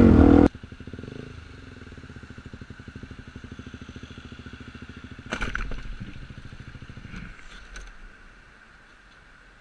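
A motorcycle engine running loud cuts off about half a second in. Then a motorcycle idles with a steady, even pulse, broken about five seconds in by a sudden clatter. The idle fades away near the end.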